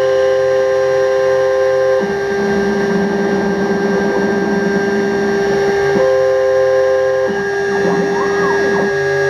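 Homemade CNC router milling styrene with a small ball-end mill. The water-cooled spindle gives a steady whine under the stepper motors' tones, which change pitch every few seconds as the axes move, with a rising-and-falling sweep near the end.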